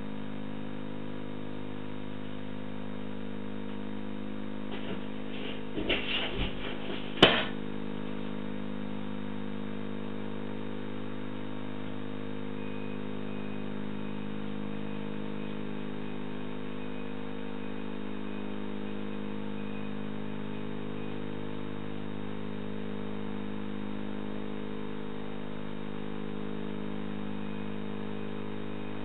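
Steady electrical hum on a CCTV camera's audio. About six seconds in, a short run of knocks and rattles ends in one sharp bang.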